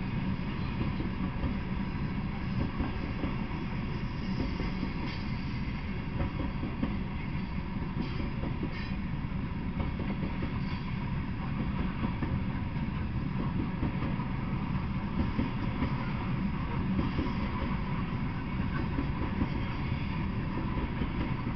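Freight train of loaded coal hopper cars rolling past on the rails, a steady low rumble of wheels and cars.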